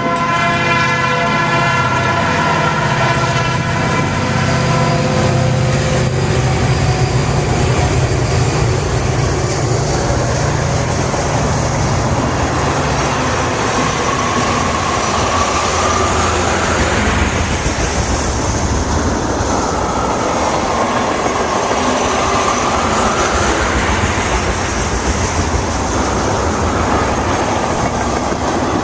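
Diesel-hauled freight train passing close by: the locomotive horn sounds a chord at the start and fades within a few seconds, then the cars go by with a steady rumble and wheel clatter on the rails. A whine rises and falls twice in the second half.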